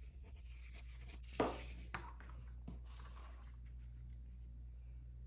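Fine-tip glue bottle nib scratching across card stock, then a sharp knock about a second and a half in and a lighter tap half a second later as the card is handled.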